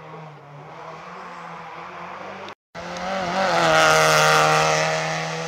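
Rally car's engine at high revs coming up the road and passing close by, loudest about four seconds in and then fading. Just before it arrives, the sound cuts out for a split second.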